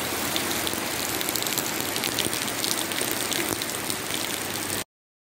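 Heavy rain falling on a wet paved lane and foliage, a steady hiss full of close drop splashes, with a stream of runoff pouring down just in front. It cuts off suddenly about a second before the end.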